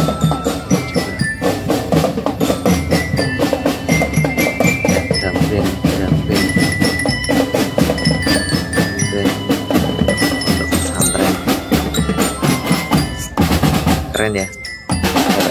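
Marching drum band of children: horizontal marching glockenspiels playing a ringing tune over rapid snare and tom drum beats.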